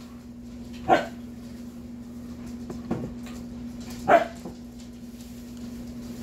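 A dog barking: two sharp single barks about a second in and about four seconds in, with a fainter one between them, over a steady low hum.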